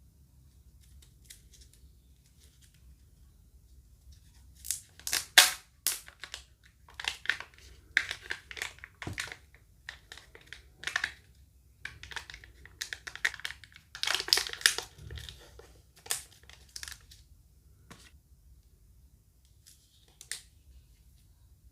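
Kinder Joy egg packaging being torn open and crinkled by hand, in irregular crackly bursts that start about four seconds in and thin out near the end.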